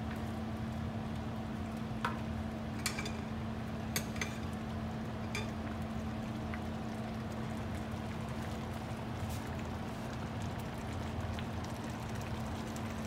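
A pot of food simmering on the stove, a steady bubbling hiss over a constant low hum, with a few light clicks in the first half.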